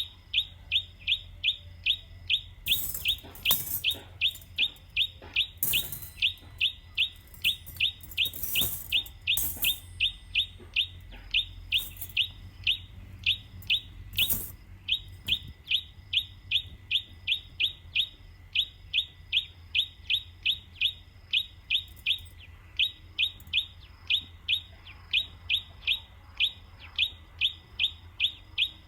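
A bird calling with a short, sharp chirp repeated steadily about three times a second, with a few brief rustling bursts in the first half.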